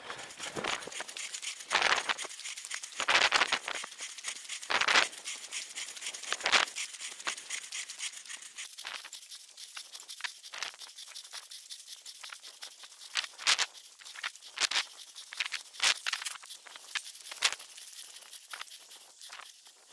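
A person running on a thin snow cover: quick crunching footsteps with clothing and gear rustling and rattling, and louder rushing swells every second or two.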